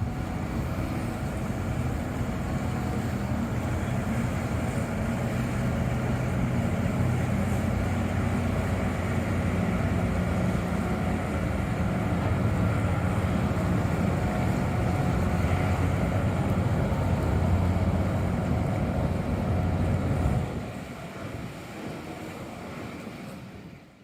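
A steady engine-like running sound with a low hum, dropping off sharply about twenty seconds in and then fading out.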